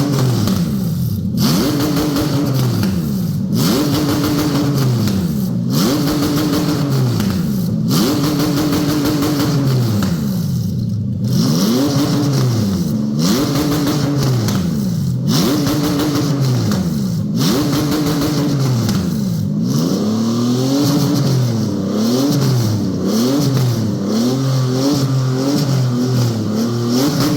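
Toyota 1GZ-FE V12 engine free-revving with no gearbox fitted: revved up and let fall back about every two seconds, then blipped in quicker, shorter rises in the second half.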